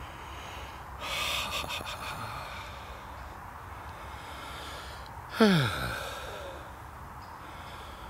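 Rustling and crunching through dry leaves and bracken underfoot, then, about five seconds in, a single short, loud sound that falls steeply in pitch.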